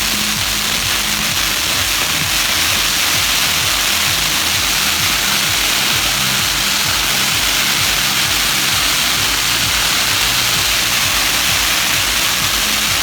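Traditional Maltese firework wheels spinning, their fountain charges giving a loud, steady, dense hiss with no bangs. Music plays underneath, its low notes changing every second or so.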